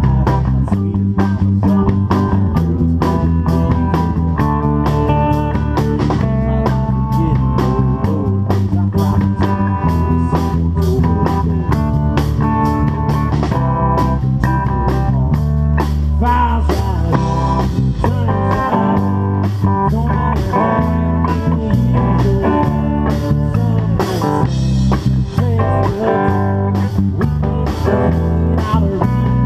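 Live rock band playing a song: electric guitar and drum kit with bass, a steady beat throughout.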